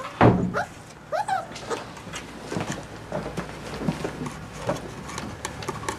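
Young border collie puppies whimpering: a sharp sound right at the start, two short high whines within the first second and a half, then light scattered clicks and small whimpers.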